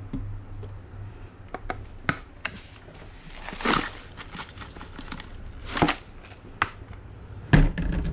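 Seasoning being shaken from a packet and a jar into a plastic bowl of raw eggs: clicks and taps of the containers being handled, two short shaking rustles, and a low thump near the end.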